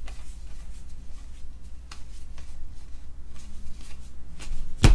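A stack of cardboard baseball trading cards being thumbed through by hand, with soft faint slides and flicks of card stock and one sharper knock near the end.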